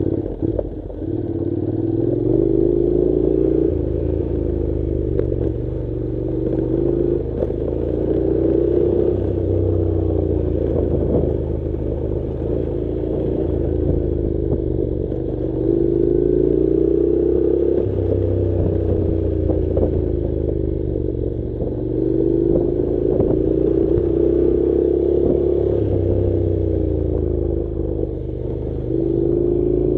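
Honda NC700's parallel-twin engine pulling on a dirt track, its pitch rising with the throttle and dropping back every few seconds, with scattered clattering knocks from the rough surface.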